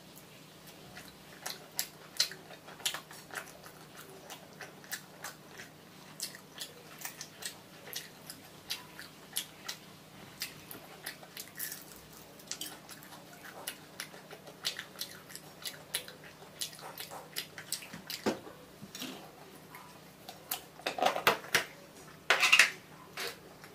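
Close-miked mouth sounds of a person biting and chewing fried fish, a steady stream of small wet clicks and smacks. A louder crackling cluster comes near the end.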